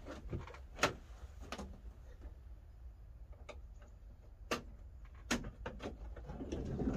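Scattered sharp clicks and knocks from camper swivel seats being handled and turned in a van's bare cab, over a low steady rumble, with a swell of noise near the end.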